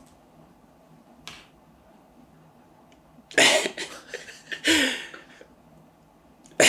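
A person sniffling and breathing hard while holding back tears: a faint sniff about a second in, then two loud, shaky breaths in the middle, the second ending in a short low catch of the voice. Quiet room tone around them.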